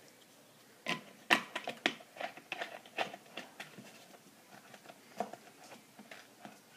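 Plastic bottle cap being screwed back onto a plastic water bottle: a run of irregular clicks and crackles from the cap and bottle, the loudest about a second in.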